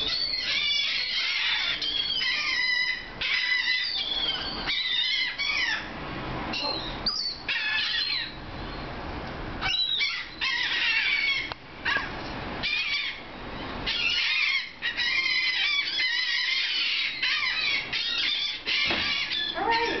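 A flock of gulls calling over and over, with many high, short calls overlapping, in clusters broken by a couple of brief lulls.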